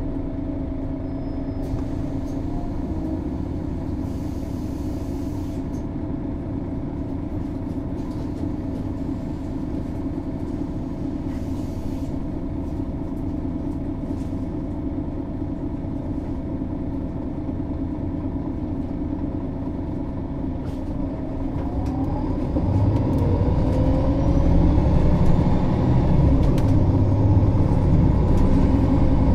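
Diesel engine of a MAN Lion's City NÜ 273 city bus idling with a steady hum. About 21 seconds in, the bus pulls away: a rising whine comes in and the engine grows louder and deeper as it accelerates.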